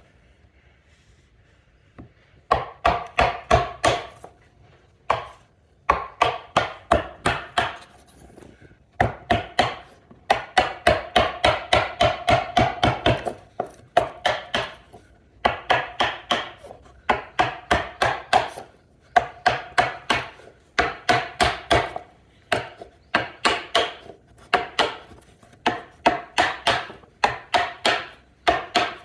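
A hammer driving a Japanese chisel into wood, chopping out the waste of a halving joint. The strikes come in quick runs of about four to five a second with a crisp ring, broken by short pauses, starting after about two seconds of quiet.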